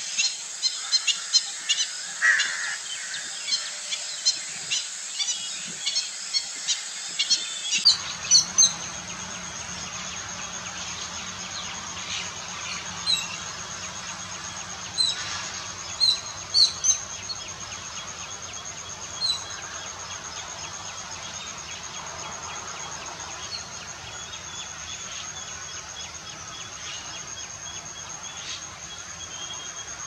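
Outdoor wetland ambience: many short bird chirps and calls over a steady high-pitched insect buzz. The chirps come thickly for the first eight seconds or so. Then the background changes abruptly to a fuller, lower hiss, with only scattered chirps after.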